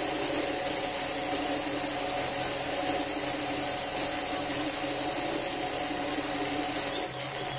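Industrial sewing machine running steadily as it stitches a seam along the edge of layered fabric, stopping near the end.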